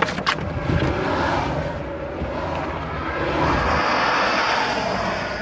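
Car driving, heard from inside the cabin: steady tyre and road noise as it slows onto the road shoulder, swelling a little about three and a half seconds in, with a few knocks at the start from the camera being handled.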